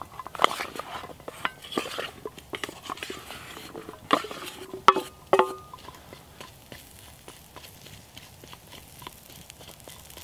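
Cubed potatoes tipped off a steel plate into a cast iron skillet of melting suet, with knocks and scrapes of plate and food against the pan; the loudest come as two or three short ringing clanks about four to five seconds in. After that the potatoes are stirred in the skillet with a spatula, with light scattered crackling.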